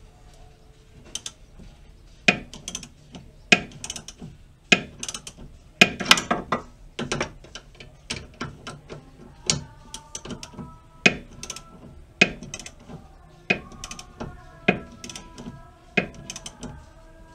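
Ratchet wrench clicking as it turns the nut on a BMW E36 stabilizer (sway bar) link: repeated short strokes, each with a sharp click about every second and a run of lighter pawl clicks between.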